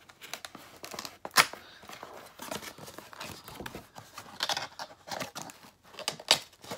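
Cardboard product box being handled and opened: irregular scraping and crinkling of the card and packaging, with a sharp snap about a second and a half in and another near the end.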